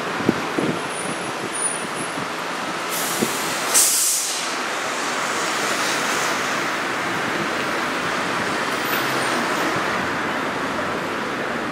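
Toyohashi Railroad Mo 3200-type streetcar rolling slowly away from its stop over street-running track, a steady running noise, with a few sharp clicks in the first second and a short loud hiss about four seconds in.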